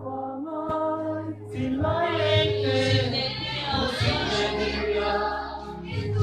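A group of voices singing together, men and women, with long held notes.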